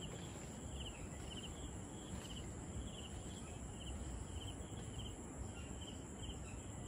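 Faint insect chirping: short pulsed chirps, two or three a second, over a low, even outdoor background hiss.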